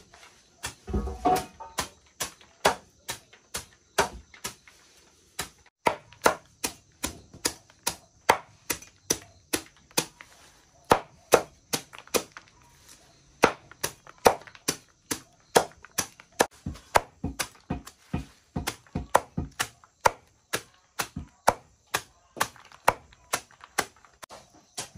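Machete blade chopping a bundle of leafy greens against a wooden chopping board, in a steady rhythm of sharp knocks at about two strokes a second.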